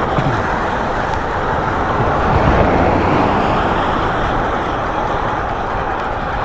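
Steady wind and road noise from riding a bike along a road, with traffic-like noise.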